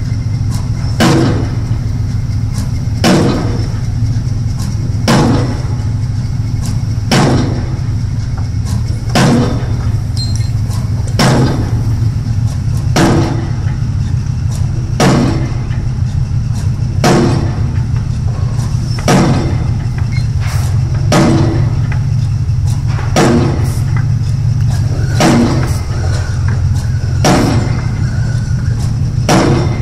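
Bruce SGH-0312 hydraulic impact pile hammer striking a square concrete pile about once every two seconds, each blow a sharp impact, over the steady low drone of the carrier excavator's engine.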